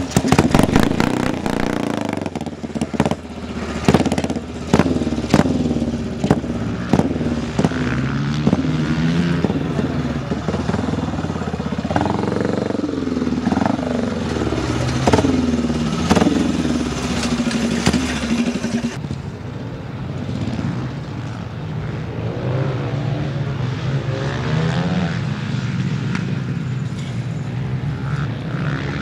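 Speedway motorcycle's single-cylinder engine, push-started and running, with sharp bangs through the first several seconds. It then revs up and down repeatedly. After about 19 seconds it gives way to a steadier, lower engine note.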